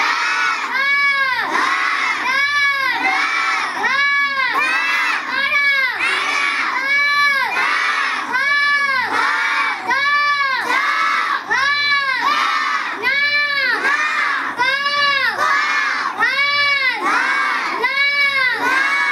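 A class of young children chanting Hindi letters and words in loud unison, in a steady sing-song beat of a little over one syllable a second, each syllable rising and falling in pitch.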